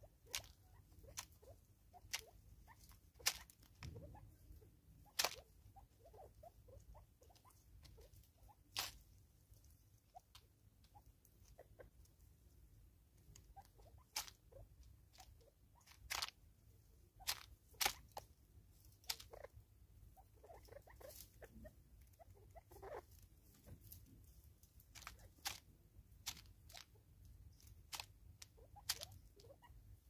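Natal spurfowl pecking seed from a plastic bottle feeder: irregular sharp taps and clicks, about one every second or two.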